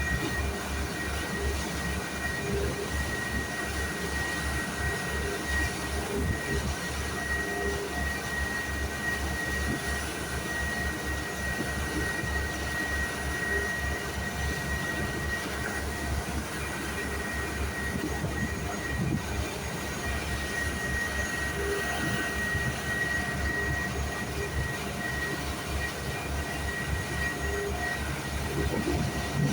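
A boat's engine running steadily at constant speed, a fast, even low throb with a steady high whine over it.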